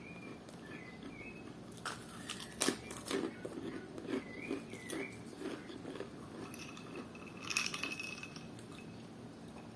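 Close-miked chewing and mouth sounds from someone eating, with irregular small clicks and crunches. A few faint, short high chirps sound now and then.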